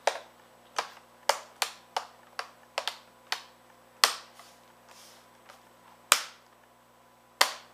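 Plastic snap clips of a Dell Studio 1555 keyboard bezel clicking into place as the trim is pressed down, about a dozen sharp clicks at uneven intervals. They come quickly at first and grow sparser, with the sharpest near the end. Each click is a clip seating, the sign that the bezel is locked down.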